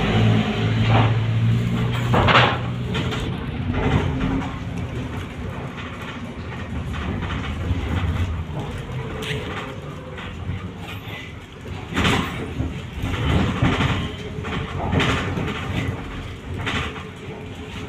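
Cabin ride noise of a trolleybus driving along a city street: a steady rumble broken by repeated knocks and rattles from the body, the loudest about two and a half seconds in and again about twelve seconds in.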